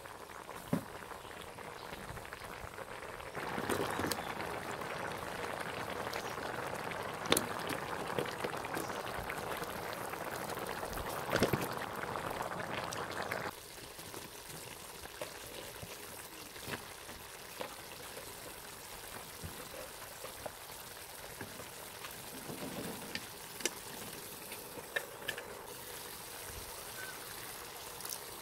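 Coconut milk bubbling and hissing as it simmers around horn snails in a pot, with a few sharp ticks. About halfway through it cuts abruptly to a quieter scene with scattered light clicks and taps as taro stalks are added to the pot.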